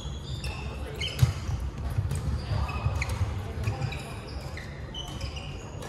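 Badminton rallies in a large echoing sports hall: sharp racket strikes on the shuttlecock, the loudest about a second in, and sneakers squeaking briefly and often on the wooden court.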